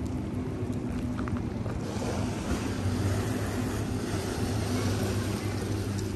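Boat engine running steadily, with a low hum under rushing wind and water noise that grows louder about two seconds in.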